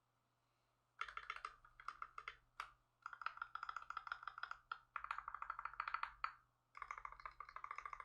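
Custom KBD67 MKII mechanical keyboard (polycarbonate case, brass plate, GMK keycaps, Krytox-lubed Tangerine linear switches) being typed on fast in four bursts of rapid keystrokes, with short pauses between them. The typing starts about a second in.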